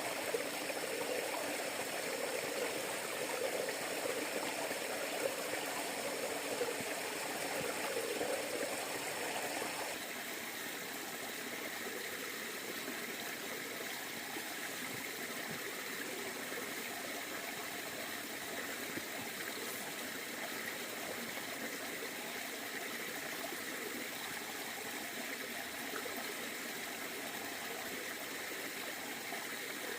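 River water flowing steadily, an even rushing and trickling. About ten seconds in it becomes slightly quieter and thinner.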